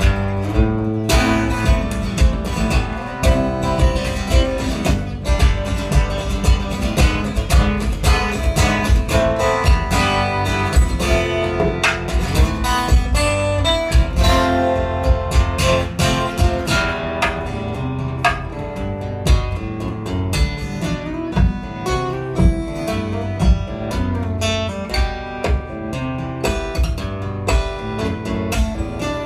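Solo acoustic guitar played fingerstyle, a melody of picked notes over a bass line, with sharp percussive knocks keeping a steady beat.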